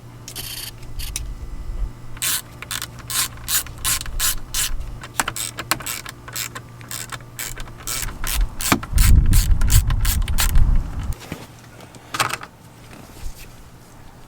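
A 1/4-inch ratchet clicking in short, even strokes, about three a second, as it turns a fastener. A loud low rumble of handling follows, then a few scattered clicks.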